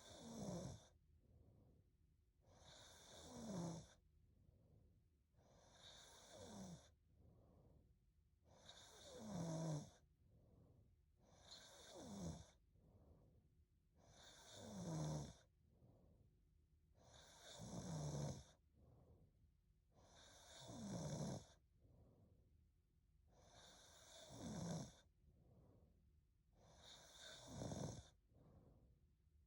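A woman snoring faintly in her sleep, a snore about every three seconds, each one sliding down in pitch, with quieter breaths between.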